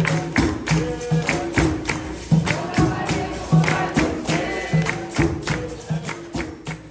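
Capoeira roda music: an atabaque drum, pandeiro and berimbaus playing a steady rhythm with the circle's hand-clapping on the beat. It fades out near the end.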